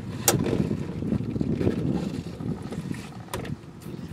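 A wiring harness and its plastic clip being worked onto a bracket by a gloved hand: low rubbing and rustling, with a sharp click near the start and another about three seconds in.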